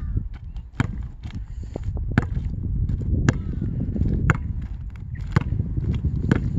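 Basketball bouncing on asphalt as it is dribbled, sharp slaps about once a second, six in all, over a steady low rumble.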